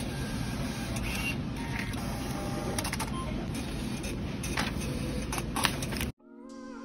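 Receipt printer of a self-service machine feeding out a long paper receipt: a steady whirring with scattered small clicks, cut off suddenly near the end, giving way to soft music.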